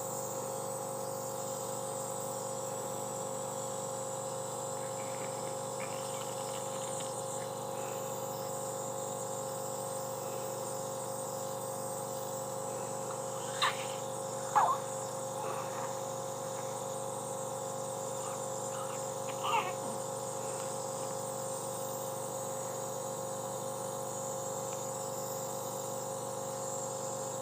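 Steady electrical-sounding hum with a high whine underneath. About halfway through an 8-month-old baby gives two short coughs in quick succession, and one more brief cough comes about six seconds later.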